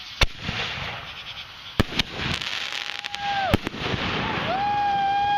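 Consumer fireworks going off from a launcher: four sharp bangs, two of them close together, over crackling. Two long held whistling tones come in near the middle and the end.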